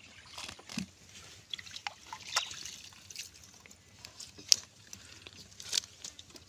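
Water splashing and dripping in small irregular splashes, the sharpest one about four and a half seconds in.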